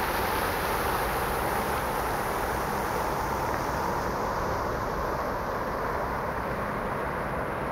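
Steady rushing and splashing of a fountain's water jet falling into its basin. The high hiss eases about halfway through, over a low, steady rumble.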